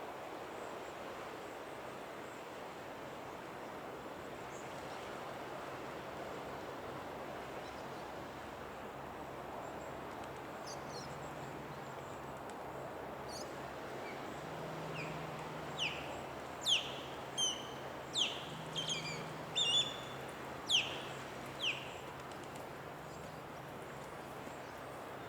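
Osprey calling: a run of about eight short, sharp, downward-sliding whistled chirps over several seconds, starting about halfway in, over a steady background hiss.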